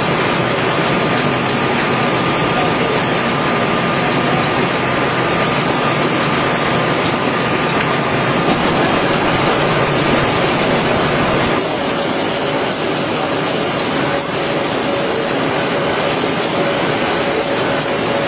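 IBIS Smart-binder running in line with a Buhrs BB700, a dense, steady mechanical clatter and whir, with a faint high whine that gives way to a lower one about two-thirds of the way through.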